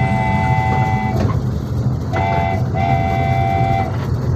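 A small tourist train's horn tooting three times, long, short, then long, each toot a steady chord of several tones, over the steady low rumble of the train running.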